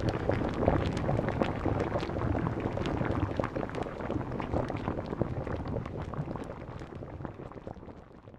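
Batchoy broth boiling hard in a wide pan: a dense bubbling full of small pops that fades away near the end.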